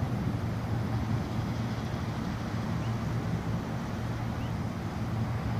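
Steady low outdoor rumble with no thunder clap or loud event, and a few faint, short high chirps.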